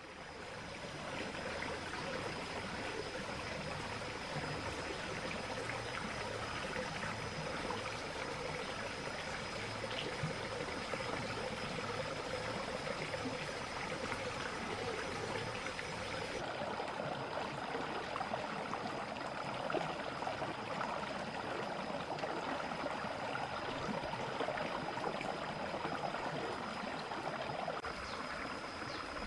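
Shallow stream running over rocks, a steady babble of water that fades in at the start.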